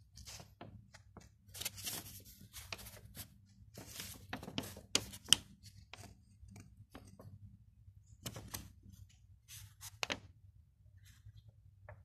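Paper instruction leaflet rustling and crinkling as it is handled and unfolded, in irregular bursts with a few sharper crackles around five seconds in and again near ten seconds.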